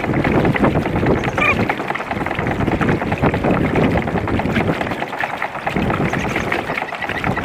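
Water splashing and rushing along the hull of a moving kayak, with wind buffeting the microphone: a steady, fairly loud wash with fine irregular crackle.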